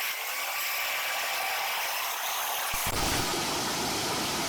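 Steady noise of heavy wood-chipping machinery running. About three seconds in it changes abruptly to a fuller, deeper noise.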